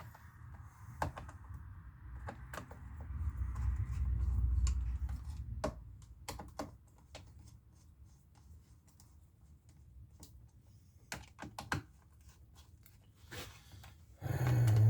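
Scattered sharp clicks and light knocks of hand tools and parts being handled while a McCulloch Mac 3200 chainsaw is taken apart, with a low rumbling stretch of handling noise around the fourth second and a louder low knock near the end.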